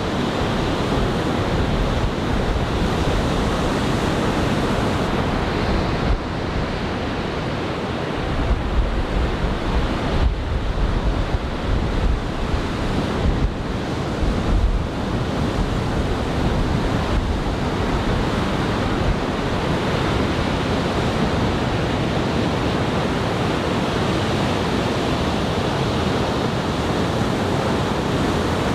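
Surf from a large typhoon swell breaking and washing on the beach in a steady roar of noise, with wind buffeting the microphone in low gusts about a third of the way through.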